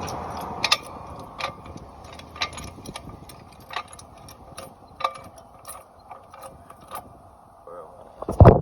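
Car jack being handled and worked: a string of irregular sharp metallic clicks and ticks, roughly one a second, then a loud thump near the end.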